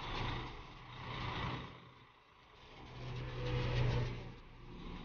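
Motor vehicle engines passing close by, the sound swelling and fading three times, with the loudest pass about four seconds in.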